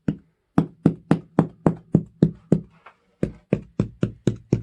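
Rapid, even knocking on the hardened coating of a model rock-crawling terrain, about three to four knocks a second, with a brief pause near the middle. The hard knocks show the coating has set nearly rock-hard.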